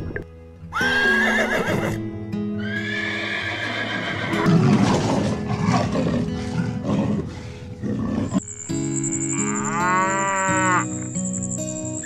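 Background music with sustained notes, overlaid by animal calls: a short call about a second in, a longer one around three seconds in, and a long wavering call from about eight and a half seconds.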